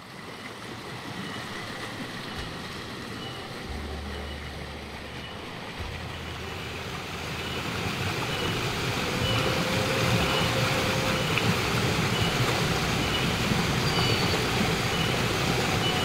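Shallow forest stream rushing over rocks, a steady wash of water noise that grows louder about halfway through. A faint high pip repeats at a steady pace throughout.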